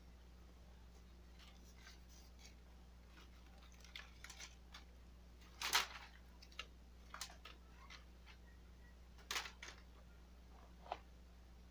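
Bamboo garden stakes being handled and pushed in among pea plants: scattered short knocks and rustles, the loudest about six seconds in and another pair a little after nine seconds, over a faint steady low hum.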